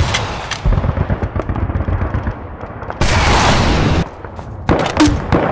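Battle sound effects of gunfire: a run of rapid shots, then a louder burst about a second long about three seconds in, and more shots near the end.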